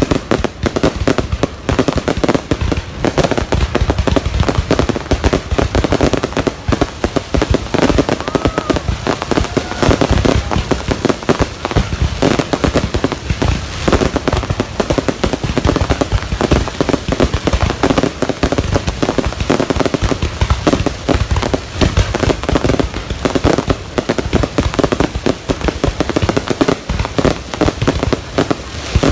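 Fireworks going off in a dense, unbroken barrage of bangs and crackles.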